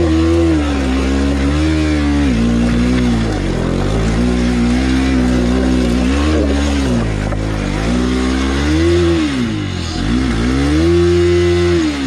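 Bajaj Pulsar NS200's single-cylinder engine revving up and down under load, with the revs climbing, holding briefly and falling back about five times as the bike strains to climb a loose rocky slope.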